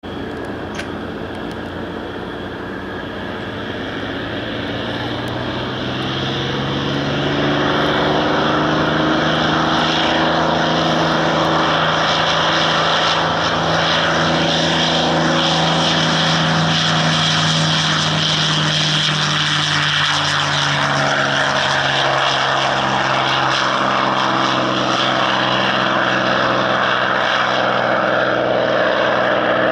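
North American P-51D Mustang's V-12 Merlin engine on its takeoff run and climb-out: a deep steady drone with propeller noise, growing louder over the first several seconds and then holding.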